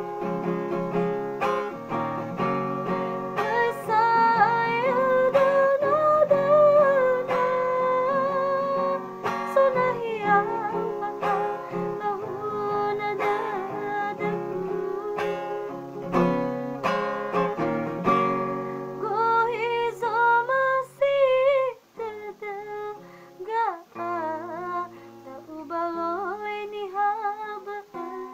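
A woman singing to acoustic guitar accompaniment, her held notes wavering with vibrato.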